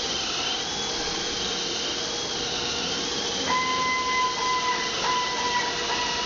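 Tire buffing machine running on a mounted truck tire: a steady rushing hiss with a high, slowly wavering whine and a low steady hum.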